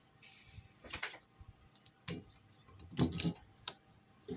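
A brief sizzling hiss as the soldering iron tins fluxed copper foil on the glass edge, then several light clicks and knocks from glass pieces and tools being handled.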